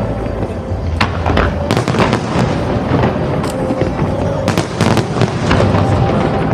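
Aerial fireworks bursting in a display: many sharp bangs and crackles at irregular intervals over a continuous rumble.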